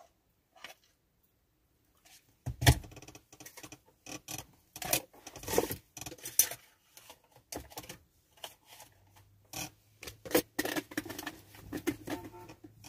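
Irregular clatter of objects being handled: a string of sharp clicks and knocks with rustling, starting about two seconds in after a near-silent start. A faint low hum joins in past the middle.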